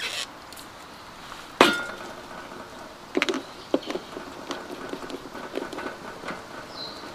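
Cooking gear clinking and knocking: one sharp knock with a short ring about a second and a half in, then a run of lighter clinks and taps. Short bird chirps are heard near the end.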